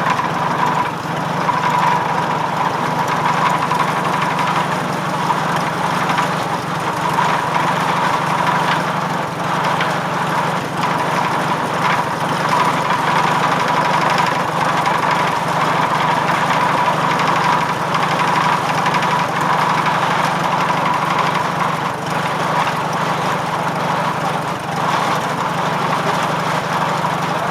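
1945 McCormick W-4 tractor's four-cylinder engine running steadily under a belt load, powering a firewood circular saw. A steady high whine sits above the engine note.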